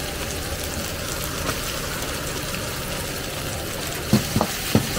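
Bean sprouts and onion sizzling in a wok over a high stove flame, with a steady low rumble from the burner. About four seconds in the wok is tossed, with three sharp knocks of the wok on the burner.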